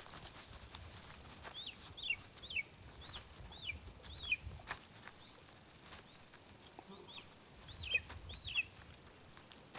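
Steady high-pitched insect trill, with a run of thin, downward-slurring peeps from downy marsh harrier chicks begging in the nest: about six between two and five seconds in, and two more near the end.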